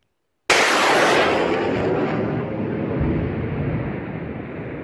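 BM-21 Grad 122 mm multiple rocket launcher firing: a sudden loud launch blast about half a second in, then a rushing noise that slowly dies away.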